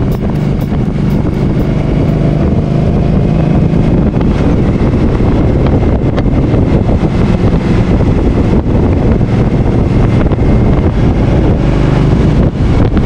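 Motorcycle engine running steadily under way, with heavy wind noise on the microphone.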